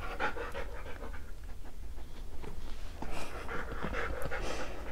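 German Shepherd dog panting with its tongue out, a run of quick, even breaths.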